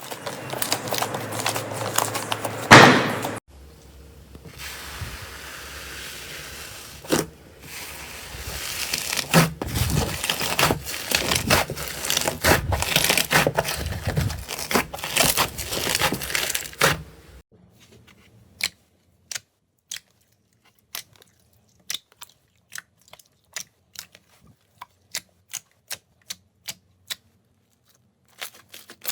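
Slime being handled, with dense crackling and tearing sounds; about two-thirds of the way through it turns to sparse, separate sharp clicks and pops.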